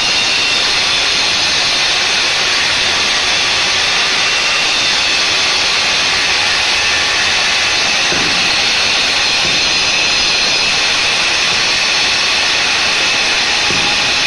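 A five-blade wall cutting machine (wall chaser) running steadily at full speed: a loud, unbroken, high-pitched whine.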